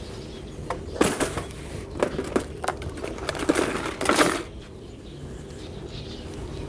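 Clicks and light clatter of small hand tools being handled and set down, in a run of knocks during the first few seconds, then quieter.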